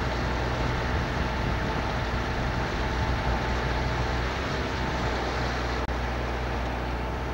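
A motorboat's diesel engine running steadily under way, its low hum mixed with the rush of wind and water past the boat.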